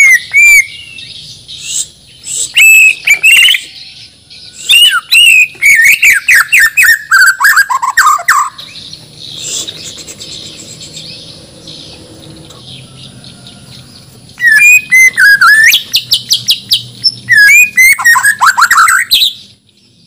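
White-rumped shama (murai batu, a Bornean bird) singing loud bursts of rising and falling whistles and fast chattering notes. There is a quieter pause in the middle, and a last burst ends abruptly just before the end.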